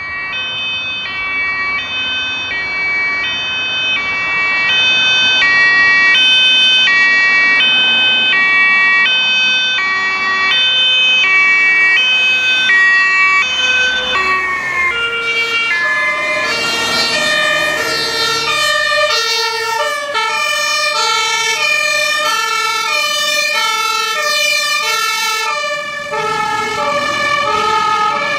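Fire engine two-tone siren alternating between a high and a low note, each held for about half a second. From about halfway through, several two-tone sirens at different pitches sound at once, overlapping in a denser, faster-changing pattern.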